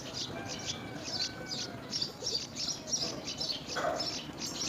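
Yellow-vented bulbul nestlings chirping: a rapid run of short, high-pitched chirps, several a second, with a brief lower sound about four seconds in.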